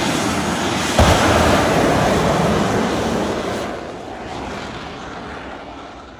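A drag-racing motorcycle running at full throttle down the strip. Its noisy roar starts abruptly about a second in, then fades away as the bike goes down the track.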